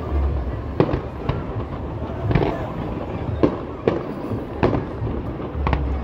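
Aerial firework shells bursting: a string of sharp bangs, about eight in six seconds at uneven intervals, over a steady background noise.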